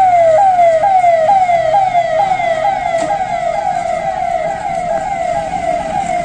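Emergency vehicle's electronic siren sounding in a fast repeating pattern, each cycle a falling tone that snaps back up, about two cycles a second, easing slightly in loudness after the middle.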